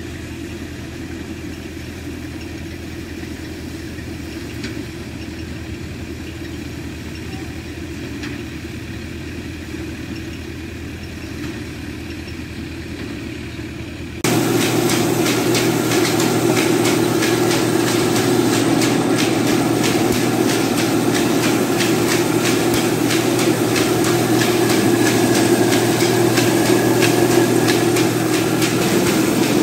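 A tractor-driven paddy thresher running steadily, the engine humming under the drum. About 14 s in it cuts abruptly to a much louder grain mill running with a rapid, even clatter as grain pours from its chute.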